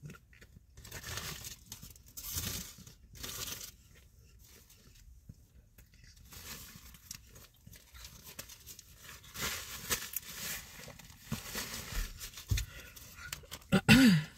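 Paper crinkling and rustling in several spells as a brown paper napkin is handled and wiped across the mouth. Near the end comes a short vocal sound falling in pitch, the loudest moment.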